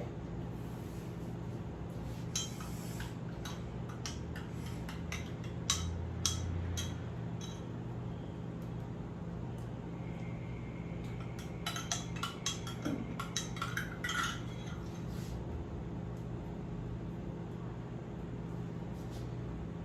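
Kitchen utensils and dishes clinking and knocking in two clusters, about two seconds in and again around twelve seconds in, over a steady low hum.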